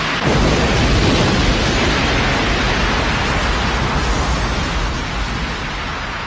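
A large explosion: a sudden onset about a quarter second in, then a long rush of noise over a deep rumble that slowly fades.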